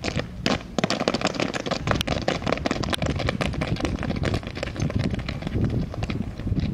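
Boots stamping and shuffling on asphalt as a foot-drill squad dresses its line, with a couple of firmer stamps near the start followed by many quick small steps.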